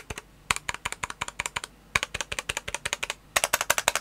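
Stabilized keys on a stock, untuned Sikakeyb SK1 Castle 60% aluminium keyboard with an FR4 plate, pressed rapidly in three quick runs of clacks with short pauses between; the last run is the loudest. The owner says the board could use tuning.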